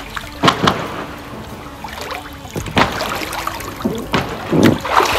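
Water splashing and sloshing in a small inflatable pool as swimmers move and kick their legs, with several separate splashes.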